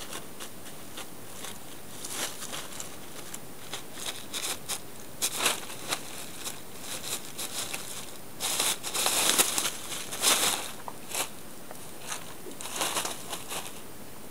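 Blue plastic tarp crinkling and rustling in irregular bursts as cats scramble and paw about in its folds, loudest in a busy flurry a little past halfway.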